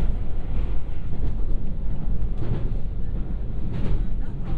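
Steady rumble of a 223 series electric multiple unit heard from inside the passenger cabin while running, wheels on rails and running gear. A couple of faint knocks come through, about halfway and near the end.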